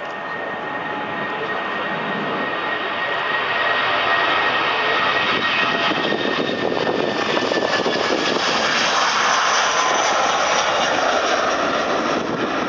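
Airbus A319's twin IAE V2500 turbofans at takeoff power, a jet roar that grows louder over the first few seconds as the airliner rolls toward and past on its takeoff run, then holds as it lifts off and climbs. A high engine whine in the roar drops a little in pitch as the aircraft goes by.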